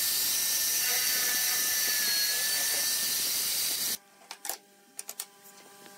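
Electric hand drill, clamped to the bench as a boring jig, running steadily with a slightly wavering whine. About four seconds in it stops, and a few light knocks of wooden pieces on a tabletop follow.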